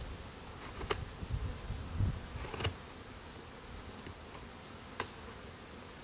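Honeybees buzzing steadily around the hive, with a few sharp clicks and low rustles from the black hive wrap as it is handled and cut open with a knife.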